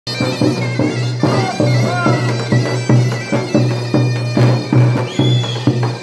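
Davul and zurna playing a fast horon dance tune: a shrill, reedy melody with quick ornaments over steady, rapid bass-drum strokes.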